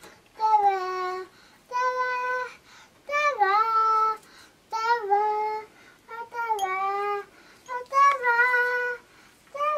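A toddler girl singing to herself in a string of short held notes, several of them sliding down in pitch at their ends, with brief pauses between phrases.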